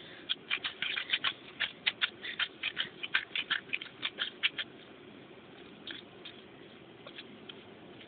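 A small child shaking a crinkly plastic bag, a quick run of rustling, rattling strokes several times a second that stops a little past halfway, followed by a few faint rustles.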